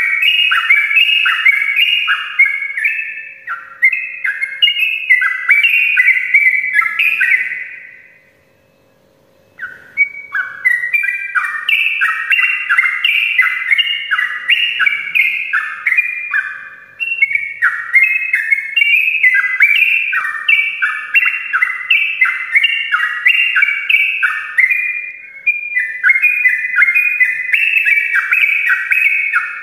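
Yellow-vented bulbul (trucukan) singing a long, fast, unbroken run of chattering phrases (ropel). It pauses for about two seconds a third of the way in, then resumes.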